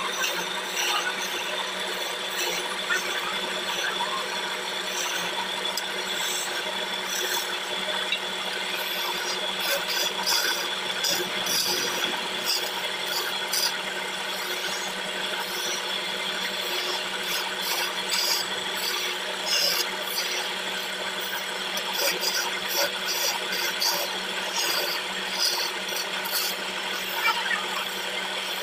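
Wood lathe running with a steady hum while a hand-held turning chisel cuts a spinning teak chair leg: a continuous scraping of the blade on the wood, dotted with many short ticks.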